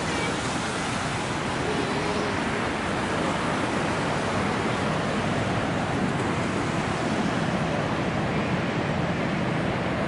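Steady rushing of water, an even noise that holds the same level without breaks.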